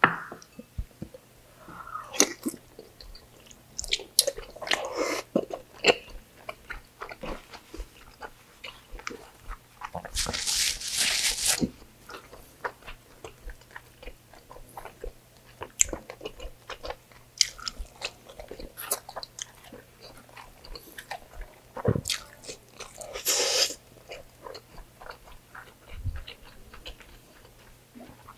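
A person eating pork belly adobo and rice by hand: wet chewing, biting and mouth smacks in quick, uneven clicks. Twice a longer noisy sound of a second or more cuts in.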